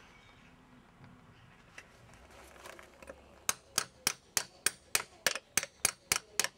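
Hammer blows in a fast, even series, about three a second, starting about three and a half seconds in; before that only faint knocks and rustling.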